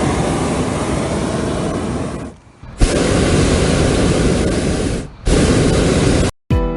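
Hot air balloon propane burner firing in blasts of steady hiss-like noise. The first cuts off about two seconds in, a second starts abruptly about half a second later and stops near five seconds, and a short third blast follows. Guitar music begins right at the end.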